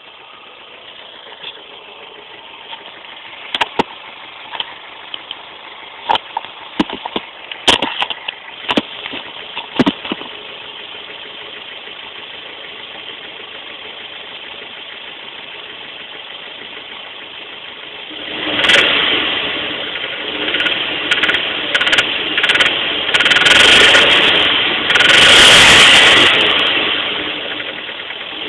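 Toyota MR2 Spyder's 1ZZ-FE 1.8-litre four-cylinder idling, with a scatter of sharp knocks in the early seconds, then revved up several times from about two-thirds of the way in. The engine has a rod knock, a worn connecting-rod bearing.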